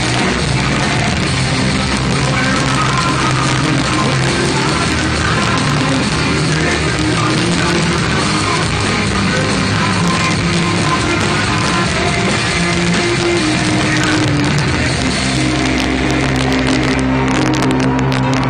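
Live rock band playing loud, with electric guitar and drums. Near the end the band settles into long held low notes.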